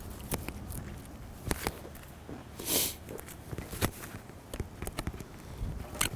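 An oyster shell handled and worked over with a small hand tool: irregular sharp clicks and scrapes, with one brief hissing scrape about three seconds in.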